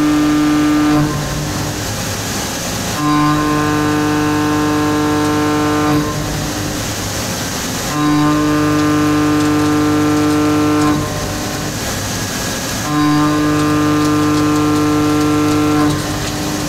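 CNC milling cutter working a steel block in repeated passes. A steady pitched cutting tone lasts about three seconds each time and is broken by noisier gaps of about two seconds, in an even rhythm.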